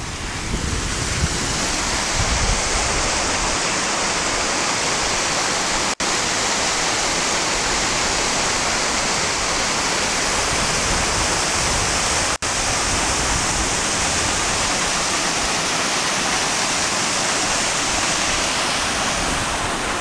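Steady rushing of a small waterfall spilling over a rock ledge into a rocky creek. The sound cuts out for an instant twice, about six and twelve seconds in.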